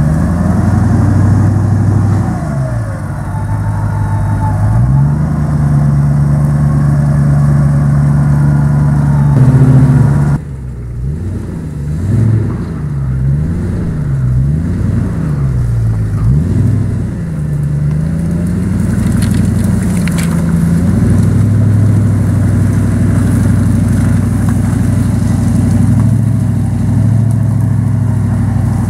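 Land Rover Discovery's engine pulling through deep mud ruts: held at fairly steady revs at first, then, after an abrupt drop in loudness about ten seconds in, revving up and down several times in quick succession before settling to steady revs again.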